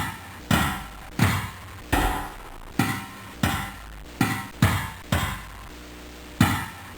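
Sound effect of about nine heavy thudding hits, roughly one every three-quarters of a second, each with a short ringing tail, and a longer pause before the last one.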